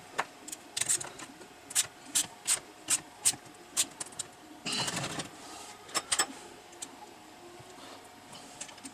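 Irregular sharp clicks and taps of small parts and hand tools being handled during chainsaw carburettor reassembly, with a brief rustling scrape about five seconds in.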